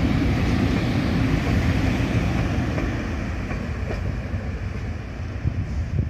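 Train running past on the track, a low rumble of wheels and engine that slowly fades as it moves away.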